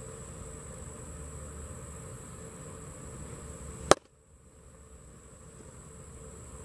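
A baseball smacks into a catcher's leather mitt once, sharply, about four seconds in; it is by far the loudest sound. Under it runs a steady high buzz of summer insects.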